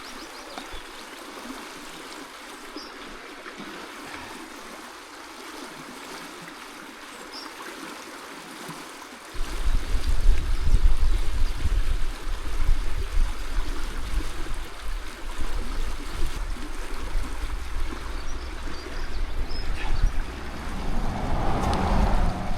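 A small stream running and trickling over rocks. About nine seconds in, a loud low rumble sets in suddenly over the water and stays.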